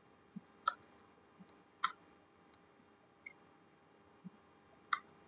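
A few scattered sharp clicks from computer controls, three clear ones over about five seconds, with softer low knocks between them and a faint steady hum underneath.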